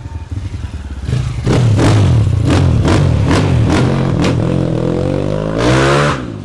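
4K Racing MCF250 250 cc supermoto motorcycle engine accelerating hard on a test ride. The engine picks up about a second in, its revs climb steadily to a peak, then fall away just before the end.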